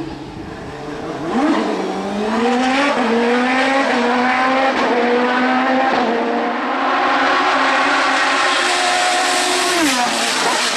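Hill-climb race car engine at full throttle, its pitch climbing and dropping back with several quick upshifts, then holding high. Near the end the revs fall sharply as the driver lifts off.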